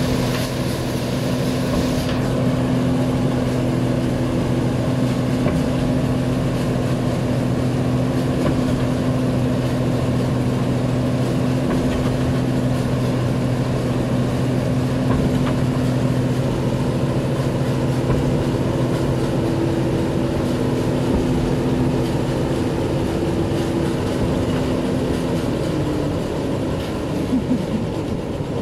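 New Holland 8070 combine harvester's diesel engine running steadily under a constant drone, its note shifting about three-quarters of the way through.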